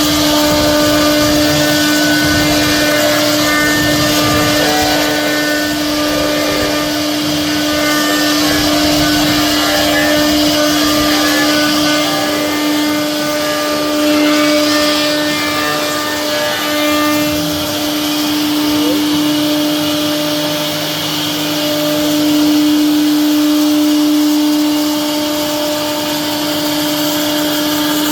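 CNC wood router's spindle running with a steady, high-pitched whine while its bit cuts into wood, a rough cutting noise coming and going beneath it.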